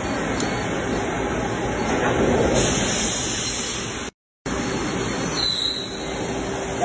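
CNC milling machine drilling into a steel block with a large twist drill: steady, dense cutting and spindle noise as chips fly, with the spindle working near full load. The sound cuts out briefly about four seconds in, then resumes.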